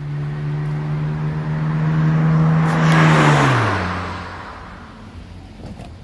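A motor vehicle driving past: its engine hum and tyre noise grow louder, peak about three seconds in, drop in pitch as it passes, then fade away.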